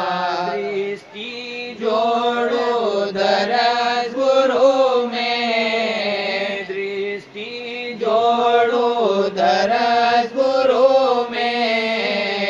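Devotional hymn (shabd) sung in Hindi, with long drawn-out notes that waver in pitch and a steady low note underneath; the singing breaks off briefly about a second in and again past the middle.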